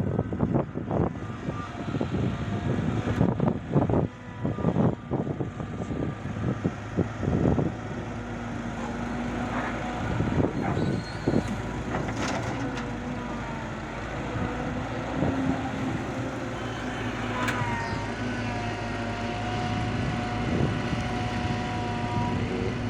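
Heavy diesel earthmoving machinery, an excavator and dump trucks, running steadily. There are many sharp metallic clanks and knocks during the first eight seconds or so, then an even engine drone with a high steady whine near the end.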